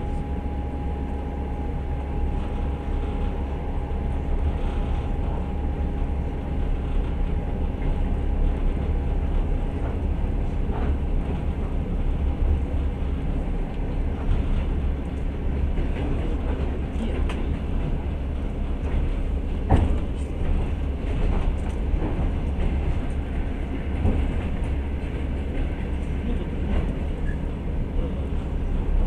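Passenger train running, heard from inside the carriage: a steady low rumble of wheels on rails with scattered clacks, the strongest about two-thirds of the way in. A thin steady whine fades out about halfway through.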